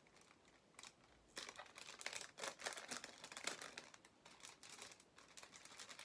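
Faint crinkling of thin plastic packaging as it is handled and opened, in short irregular crackles that pick up about a second in.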